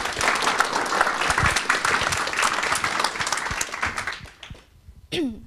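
Audience applauding, dense clapping that fades out after about four seconds.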